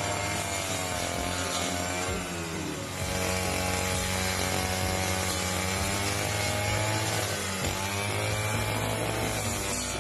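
Small two-stroke engine running, its pitch dropping and climbing again twice as the throttle is eased off and opened up.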